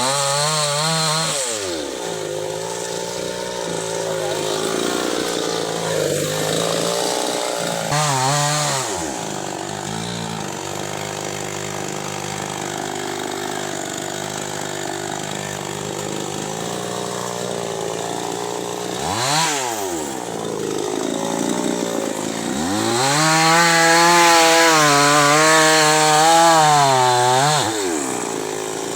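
Two-stroke chainsaw revving up and dropping back to idle several times while cutting wood. Near the end it holds a longer run at high revs for about four seconds before falling back to idle.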